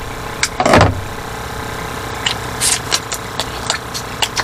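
Cooked blue swimmer crab shells being cracked and crunched while eaten, a string of short cracks with a louder crunch under a second in, over a steady mechanical hum.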